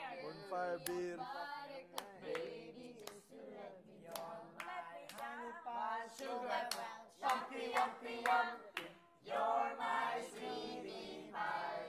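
Several voices singing together without instruments, with scattered hand claps.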